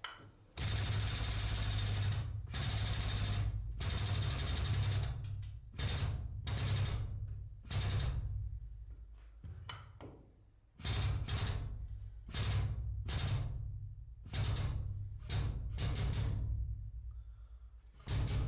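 Arc welding on the aluminium air-conditioning pipe, struck in a series of short bursts of about a second each: each arc gives a harsh hiss over a steady mains hum. Near the end it switches to a quick run of short pulses.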